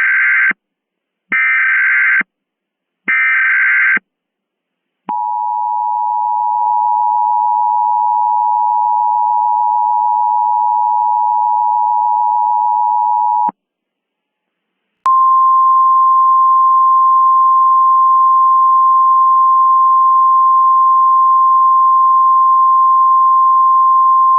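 Emergency Alert System alert tones: three short buzzy SAME data header bursts, then the two-tone EAS attention signal held for about eight seconds. After a short pause comes a single steady tone near 1 kHz, like the NOAA Weather Radio alert tone, lasting about ten seconds.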